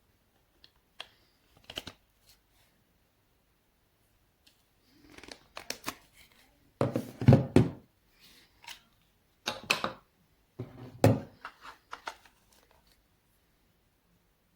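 Irregular clicks, knocks and brief rustles of objects being handled, with a few louder clattering clusters in the second half.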